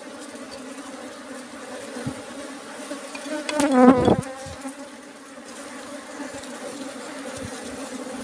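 Dwarf honeybees (Apis florea) humming steadily as a swarm around their comb while it is being cut: a disturbed, defensive colony. One louder buzz rises and falls in pitch about four seconds in.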